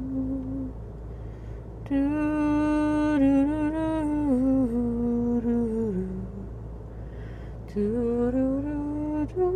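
A single voice doing intuitive, wordless singing: a slow, sad lament of long held notes. A note ends in the first second. From about two seconds in, a long note steps down in pitch several times. After a short pause, a note slides upward near the end.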